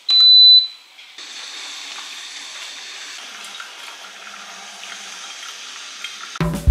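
A short, loud, high electronic beep, then water running steadily for several seconds.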